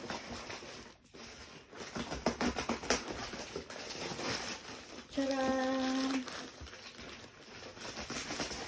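Plastic mailer bag and packaging crinkling and rustling as hands rummage inside it. About five seconds in, a brief held voiced sound, a short 'ooh'.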